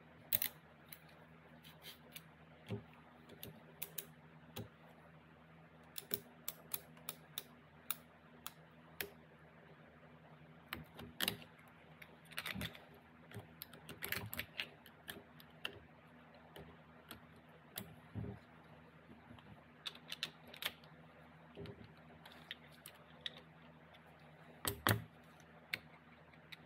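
Scattered light metallic clicks and taps, irregular in timing, as tools and fingers work at a hardened steel snap ring on the shaft and gear set of a New Process 242 transfer case. A faint steady hum runs underneath.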